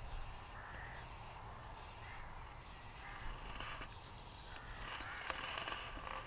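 Crows cawing again and again, over a steady low wind rumble on the microphone. In the second half there is rustling and a few small clicks as the fly rod is cast and the line handled.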